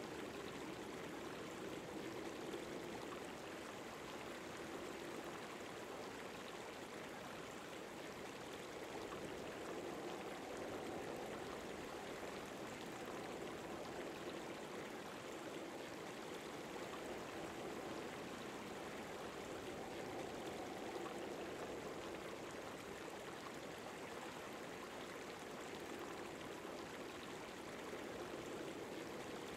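Steady, faint rushing of a river flowing over a shallow bed.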